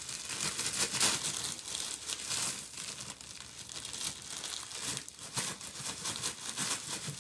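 Crinkling of a clear plastic zip-top bag of candy being handled and squeezed, busier in the first few seconds and lighter after.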